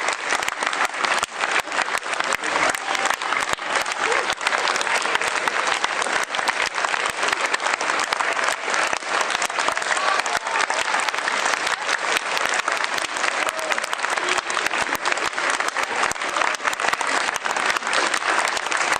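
A theatre audience applauding, many people clapping steadily at an even level.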